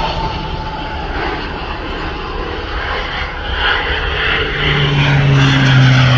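Crop-dusting plane's engine and propeller droning as it passes. A high whine slowly falls in pitch at the start, and a steady low hum comes in about four and a half seconds in as the sound grows louder.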